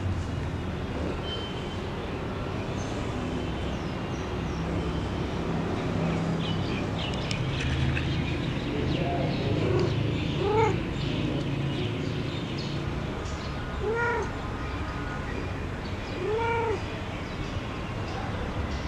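Domestic cat meowing, a few short meows in the second half, each rising and then falling in pitch, over a steady low background rumble.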